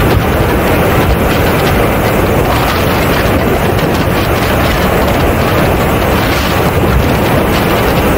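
Loud, steady rush of airflow buffeting a camera microphone mounted under the belly of a radio-controlled A-10 model jet in flight, blended with the model's engine noise.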